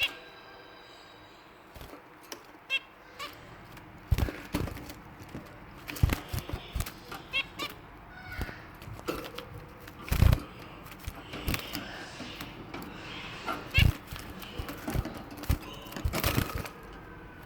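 Pet finches moving about their cage: scattered taps and knocks and wing flutters, with a few short high chirps.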